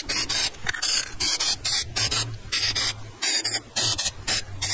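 Aerosol spray can of clear polyacrylic sealer sprayed in short, quick hissing bursts, about three or four a second, sealing a small wooden piece.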